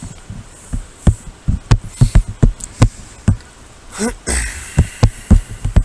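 A run of irregular close knocks and thumps on a body-worn camera's microphone, roughly two a second, with a short vocal sound about four seconds in.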